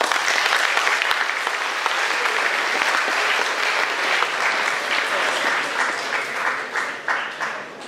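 Audience applauding, a dense clapping that dies down near the end.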